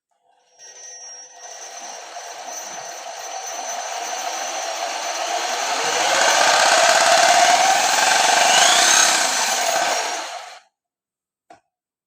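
A power tool runs for about ten seconds, spinning a rewound ceiling-fan generator whose output wires are shorted for a current test. It gets louder and rises in pitch as it speeds up, then stops suddenly.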